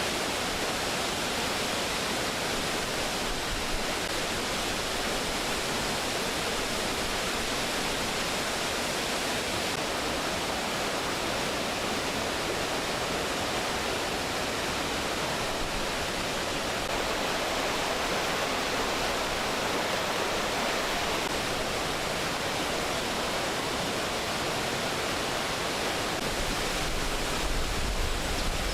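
Steady rushing noise with no distinct events, and low rumble from wind on the microphone building near the end.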